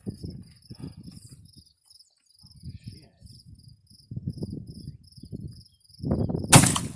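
Crickets chirp steadily at about three pulses a second over a low, irregular rumbling noise. About six and a half seconds in comes a single loud rifle shot, the loudest sound, from a Model 1871/84 Mauser firing at a long-range target.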